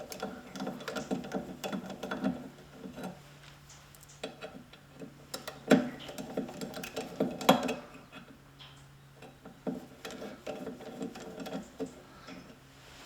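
Hand tools working the pulley off a band saw motor: several bursts of rapid clicking, typical of a ratchet wrench, with two sharper metal knocks about six and seven and a half seconds in.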